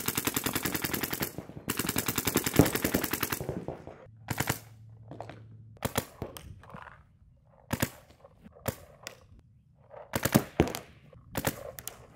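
Paintball marker firing: two long, very rapid strings of shots in the first few seconds, then short bursts of a few shots at a time.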